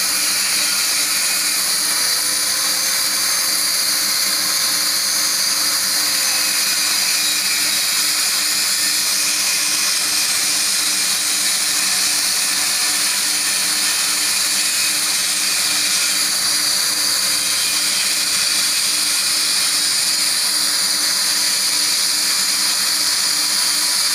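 Plasma cutting torch cutting sheet steel along a straightedge: a steady, unbroken high hiss from the arc and air jet, with a faint low hum underneath.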